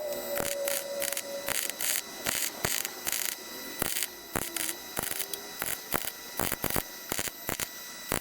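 MIG welder laying short, stop-start bursts of weld on a sheet-steel patch: a steady crackling hiss broken by irregular sharp pops as each bead is struck and stopped.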